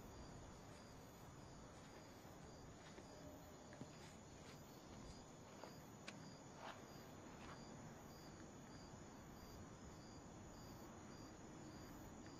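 Faint night ambience of crickets chirping at an even pace, with a few soft clicks.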